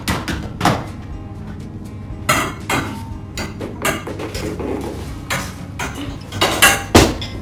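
Plastic and metal parts of a baby changing unit knocking and clattering as its changing top is handled and fitted onto the frame. The sharp knocks come irregularly, about half a dozen of them, and the loudest falls near the end.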